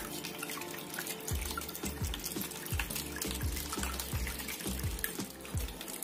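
Water trickling and splashing from the spouts of a small tabletop fountain into its basin, steady with fine dripping ticks. Background music with a low, repeated beat plays along.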